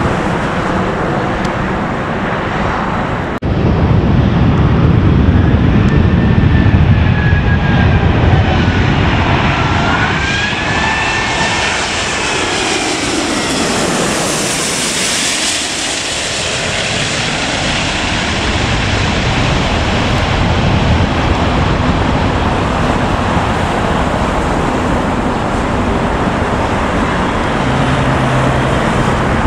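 Emirates Airbus A380 jet engines passing low overhead on final approach with the gear down: a loud, rushing jet roar with whining tones that glide in pitch. The roar peaks as the aircraft passes directly overhead about halfway through, then settles into a steadier, more distant jet rumble.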